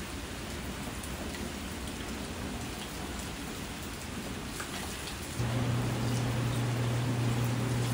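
Steady rain, with a drinking fountain's water stream running into a plastic container. About five and a half seconds in, a loud steady low electric hum starts and keeps on.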